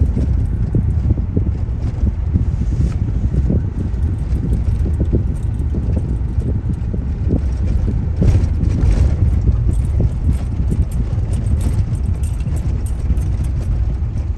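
Road noise inside a moving car: a steady low rumble with frequent small knocks and rattles, and a louder noisy stretch about eight seconds in.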